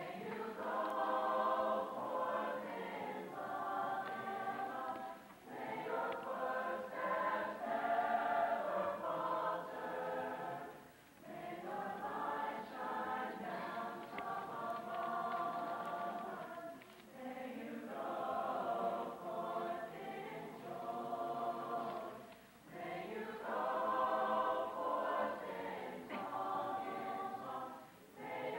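High school mixed choir of boys' and girls' voices singing together, in phrases of a few seconds with brief breaks for breath between them, from an old VHS tape recording.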